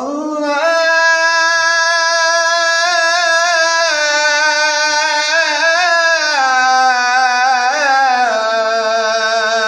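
A man chanting an Arabic supplication, holding one long melismatic note for about ten seconds. The pitch wavers and steps down twice, about six and about eight seconds in.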